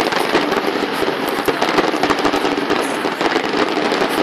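Fireworks display: a dense, unbroken barrage of rapid crackling pops from many shells bursting at once.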